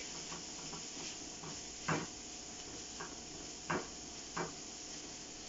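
Diced peppers, onions and garlic sizzling steadily in a frying pan, with a utensil stirring them and knocking against the pan a few times.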